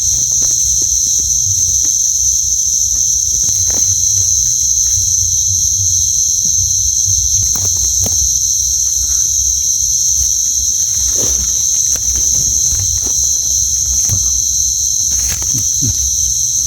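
Night insects, crickets among them, calling in a steady chorus: a constant high-pitched ringing drone, with scattered faint clicks and rustles.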